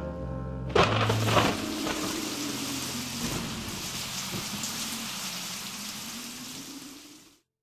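Final bars of a saxophone jazz tune: the last held note gives way about a second in to a cymbal crash, and its hissing wash rings on and fades out to nothing near the end.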